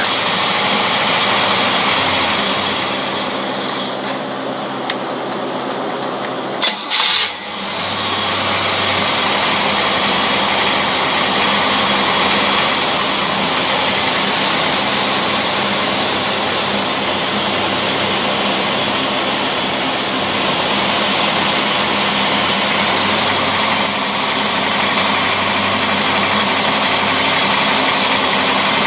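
Engine running steadily on a customer's boat carburetor under test, a carburetor the mechanic judges messed up internally and in need of a rebuild. About four seconds in the engine sound drops and thins for a few seconds, then a brief sharp burst near seven seconds before it settles back to steady running.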